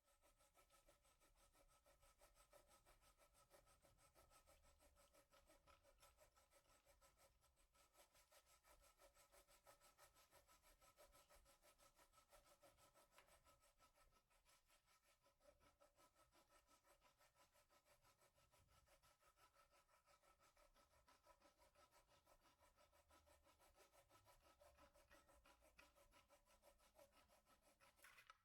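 Faint, rapid back-and-forth rubbing strokes of abrasive on wood, as in hand-sanding a wooden guitar body, going on steadily and stopping abruptly at the end.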